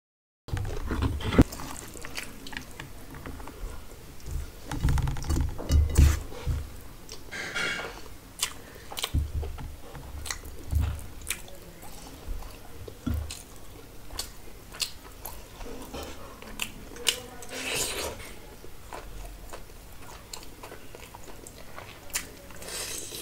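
Close-miked eating by hand: chewing and lip-smacking on mouthfuls of rice and meat curry, with wet squishing as food is mixed by hand on a steel plate and many sharp clicks. It starts after a brief dropout to silence.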